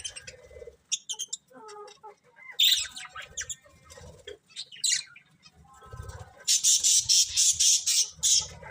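Pet budgerigars chirping and chattering, with short warbling calls throughout, then a run of rapid, loud, harsh squawks about two-thirds of the way in.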